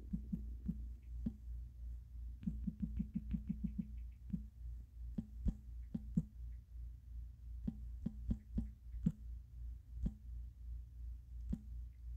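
Smartphone on-screen keyboard clicking as text is typed, in single key clicks. About two and a half seconds in comes a quick even run of about ten clicks as letters are deleted. A low steady hum runs underneath.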